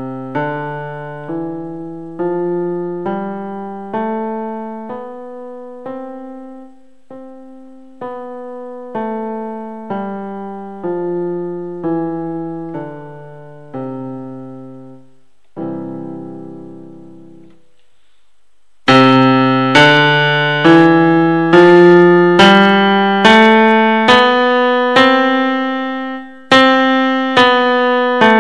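Electronic keyboard on a piano voice playing a simple tune note by note, softly at first; after a pause of a couple of seconds about two-thirds of the way in, the tune is played much louder.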